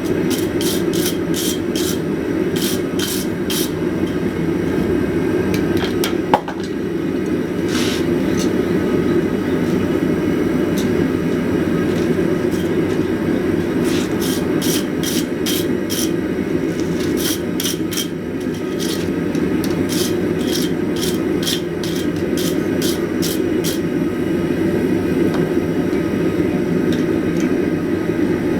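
A forge runs with a steady roar. Over it come runs of quick, short high-pitched strokes, about three a second, and one sharp knock about six seconds in.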